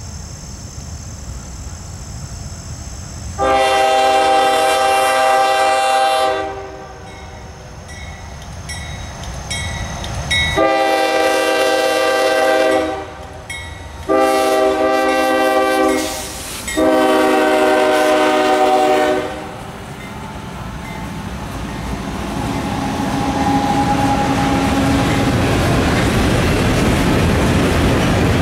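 CSX freight train's diesel locomotive sounding its multi-chime air horn in four blasts, long, long, shorter, long: the standard grade-crossing signal. After the last blast the rumble and wheel noise of the passing train grow steadily louder.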